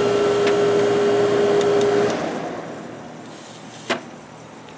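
Window air conditioner running with a steady hum, shut off about two seconds in; the sound dies away over the next second. A single click comes near the end.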